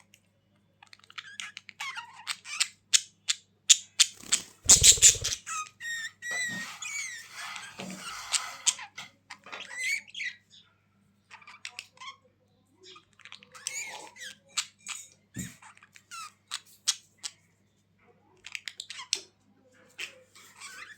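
Budgerigars chattering and squawking in short bursts of chirps, clicks and warbling glides, with brief pauses now and then. A brief loud noise comes about four and a half seconds in.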